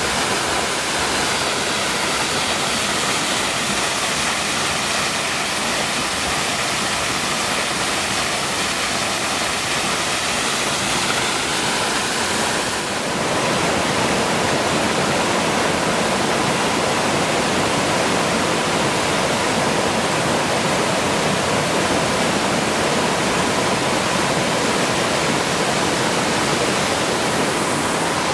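Grail Falls, a tall waterfall cascading over rock cliffs, giving a steady, loud rush of falling water. The tone shifts a little about thirteen seconds in, to a fuller, deeper rush.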